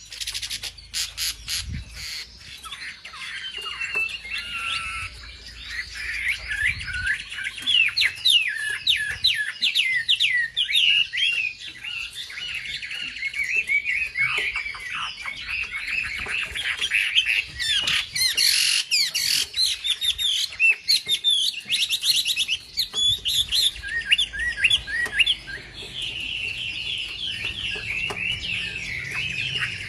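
Wambi bird song: a dense, continuous stream of rapid chirps, trills and quick up-and-down whistled notes, used as a provoking call for caged wambi birds.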